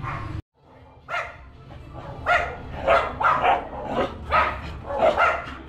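A dog barking repeatedly in short barks, roughly two a second, starting about a second in.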